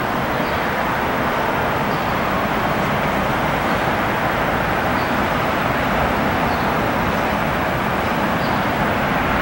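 Steady rushing jet noise from a Hawker 4000 Horizon business jet's Pratt & Whitney PW308A turbofans as it touches down and rolls out along the runway.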